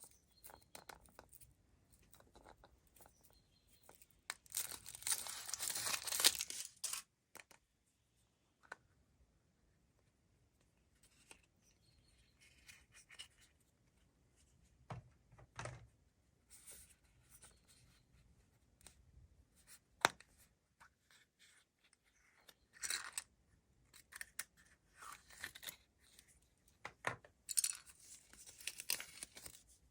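Foil wrappers of Kinder Surprise chocolate eggs crinkling and tearing as they are peeled off, in several separate bursts, the longest about four to seven seconds in, with a few short sharp clicks between.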